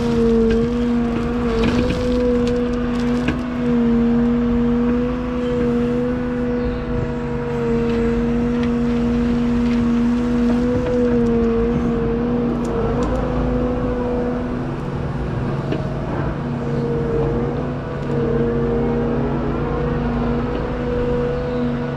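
Liebherr A913 Compact wheeled excavator's diesel engine and hydraulic pump running with a steady hum. The pitch sags briefly several times as the hydraulics take load while the Steelwrist tiltrotator works the grading beam over the gravel.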